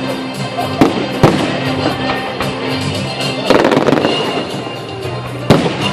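Fireworks shells bursting with sharp bangs, about a second in, again shortly after, and near the end, with a dense crackling burst around the middle. Music plays steadily underneath.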